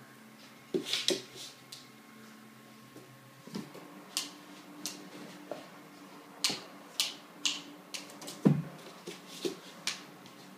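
Irregular sharp clicks and clatters of a Drentsche patrijshond puppy playing with a hairbrush, the brush and the pup's feet knocking on the floor, with one louder thump toward the end.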